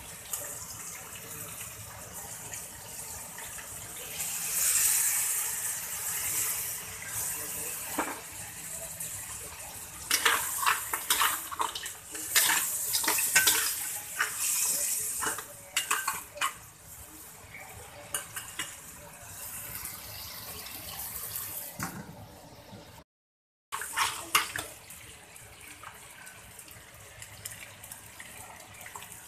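Crab pieces frying in a wok with a steady sizzle, while a spatula scrapes and clatters against the wok as they are stir-fried, most busily in the middle stretch.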